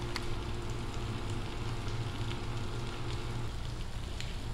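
A steady, even hiss over a low hum, with a couple of faint clicks, one just after the start and one near the end.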